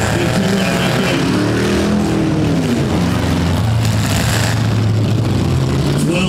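V8 engines of demolition derby cars running and revving up and down, several at once.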